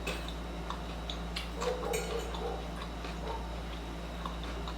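Eating salad: scattered small crunches and mouth clicks of chewing, over a steady low electrical hum.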